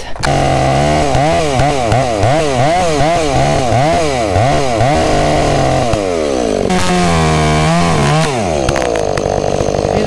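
Two-stroke chainsaw at full throttle bucking a large log, its engine pitch wavering up and down about twice a second as the chain loads and frees in the cut. Around seven seconds in it holds a steadier, higher note for a moment, then settles lower.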